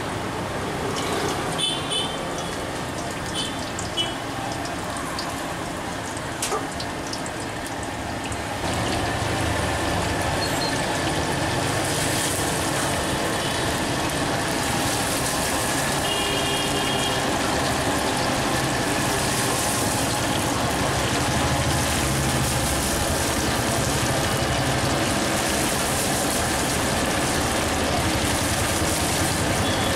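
Marinated chicken pieces deep-frying in a steel kadai of hot oil: a steady bubbling sizzle that gets louder about nine seconds in and holds. A few clinks of utensils in the first seconds.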